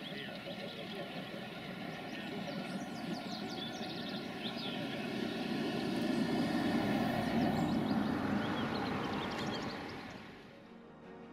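Steam-hauled train running into a station, its rumble swelling to a peak about two-thirds of the way through and fading near the end, with birds chirping.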